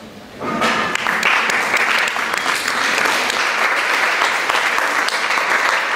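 An audience applauding, a dense steady clapping that starts about half a second in and keeps up evenly.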